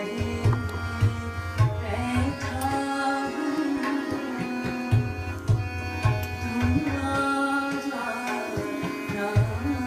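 Hindustani devotional song (bhajan) in Raag Bhairavi: a woman singing with tabla accompaniment over steady held notes, the tabla's low bass strokes standing out.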